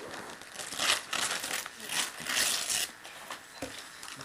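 Wrapping paper being torn and crumpled off a heavily taped gift box, in rustling bursts about a second in and again from about two seconds to nearly three seconds in.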